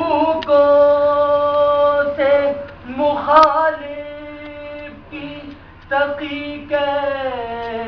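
Unaccompanied sung recitation of an Urdu Salam, a Muharram devotional poem. A single voice holds long, drawn-out notes with short pitch slides between them, dipping quieter for a moment partway through.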